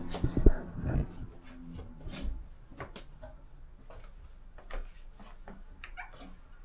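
Handling noise: a few sharp knocks in the first second or so, then scattered light clicks, taps and rustling as a person moves about and handles things in a small bathroom.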